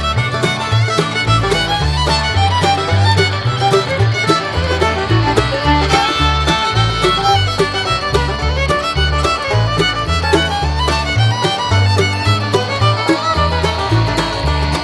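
Upbeat bluegrass-style background music led by fiddle over a steady bass beat.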